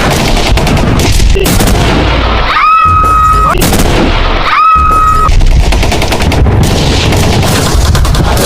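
Battle sound effect: dense, continuous gunfire with booming explosions. Two short, steady whistle-like tones cut through, about three and five seconds in.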